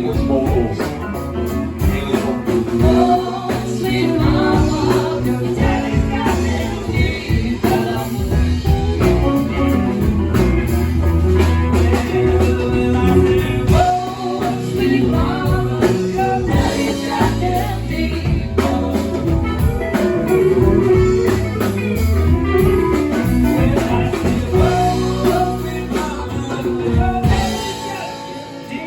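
Live band playing amplified rock: electric guitar, bass and drum kit with a singing voice, loud and steady, easing off near the end.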